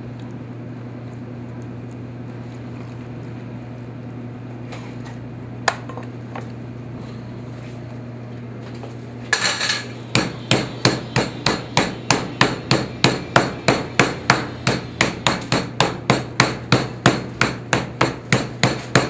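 Metal meat mallet pounding a thin chicken breast flat on a plastic cutting board: a steady run of blows, about three a second, starting about halfway through. Before it only a steady low hum is heard.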